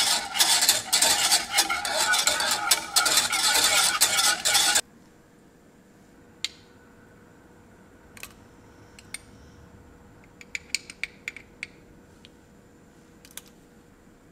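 A utensil stirring and scraping rapidly in a skillet as the butter and cream go in, cutting off abruptly about five seconds in. After that, only scattered light clicks and taps of kitchen utensils, with a small cluster of quick taps near the end.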